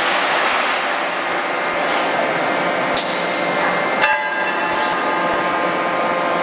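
CNC closed die forging hammer striking: sharp blows at the start, about three seconds in and just after four seconds, the last one leaving a metallic ring, over a loud steady hiss of shop noise.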